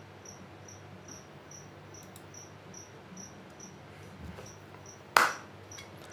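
Faint, evenly repeated high-pitched chirps, about two and a half a second, over a steady low hum; the chirps stop about two-thirds of the way in. A short, loud burst of noise comes about five seconds in.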